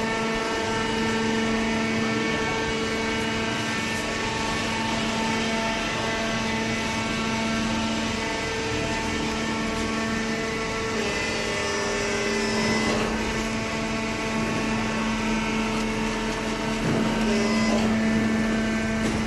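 Vertical hydraulic baler's electric motor and hydraulic pump running with a steady hum, its pitch shifting a little about halfway through.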